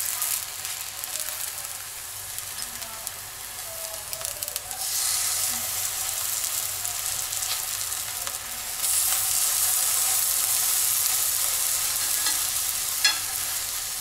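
Eggplant slices frying in hot sunflower oil in a non-stick pan: a steady sizzle with crackle. The sizzle steps up about five seconds in and again about nine seconds in as slices are turned over with a fork, and there are a few sharp ticks near the end.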